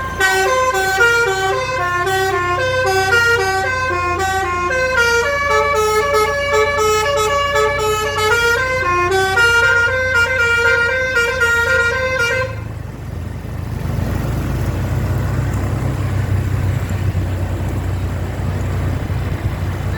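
Basuri telolet bus horn playing a tune of quick stepped notes for about twelve seconds, then cutting off abruptly, leaving a low rumble.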